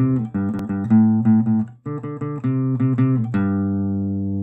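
Instrumental intro music: a quick run of pitched notes, a brief break about two seconds in, then a final note that rings on and slowly fades.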